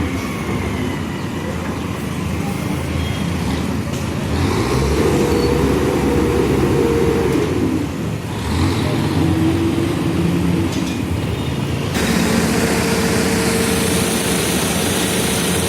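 Manitou backhoe loader's diesel engine running and revving up and down under hydraulic load as it digs and loads. The engine sound changes abruptly about twelve seconds in, then runs steadily.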